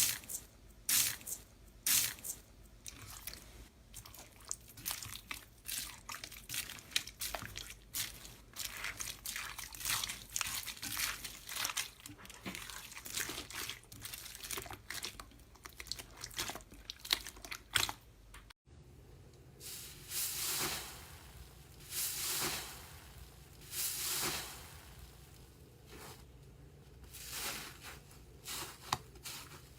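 Slime being squeezed and pressed, with dense crackling and popping. After a cut about two-thirds of the way through, slower squishes come roughly every two seconds.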